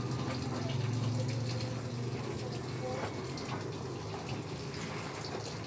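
Water running and trickling into a concrete fish tank, over a steady low hum.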